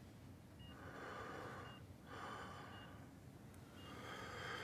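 Slow, laboured breathing of a dying man lying in a hospital bed with a nasal oxygen cannula: three faint, noisy breaths. A short high beep sounds about once a second, like a bedside monitor.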